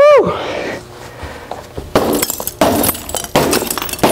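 Hammer blows on cracked glass held together by 3M security window film, each with a crunch and clink of glass. About four strikes, roughly one every 0.7 seconds, starting about two seconds in. The film keeps the shattered pane from giving way.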